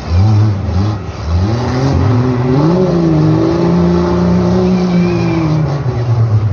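Full-size demolition derby car's engine revving hard: its pitch climbs over the first few seconds, holds high, then drops off near the end.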